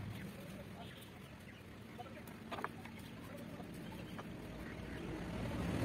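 Hands twisting and handling a pump motor's electrical lead wires: a few small, faint clicks and rustles, the clearest about two and a half seconds in, over a low steady background rumble.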